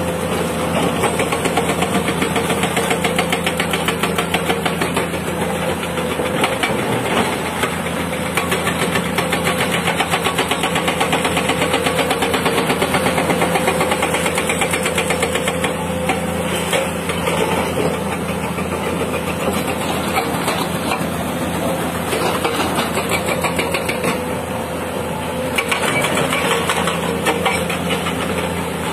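Caterpillar 320D hydraulic excavator's diesel engine running steadily while the machine digs, with a fast, even pulse to its sound.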